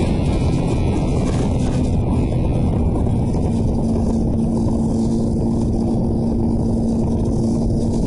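Motorcycle riding at a steady speed, its engine running under loud wind rush on the microphone; a steady hum comes in about three and a half seconds in.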